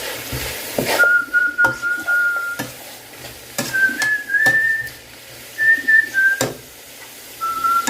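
A person whistling a tune: a few held notes that step up and down in pitch, broken by pauses. Several sharp clicks and knocks of a utensil against the cooking pot sound in between.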